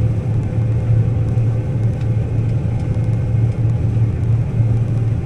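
Combine harvester running steadily while cutting soybeans: a constant low drone from the engine and threshing machinery, with a faint steady higher hum.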